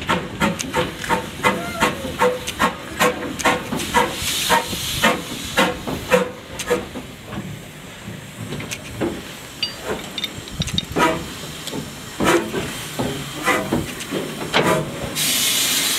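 Andrew Barclay saddle-tank steam locomotive Rosyth No.1 running slowly into a station, with a rhythmic beat of about three a second that fades out after six or seven seconds. About fifteen seconds in, a loud hiss of steam starts.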